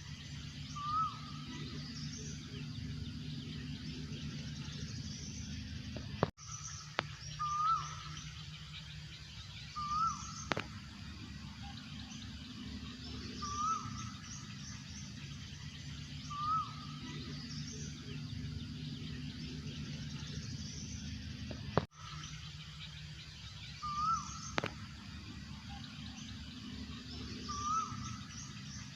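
Asian koel calling: a short rising call repeated every few seconds, with faint higher chirps of other birds and a steady low hum underneath.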